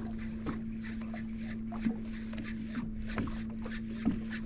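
A boat's electric trolling motor humming steadily at one pitch, with scattered light clicks and water taps against the hull.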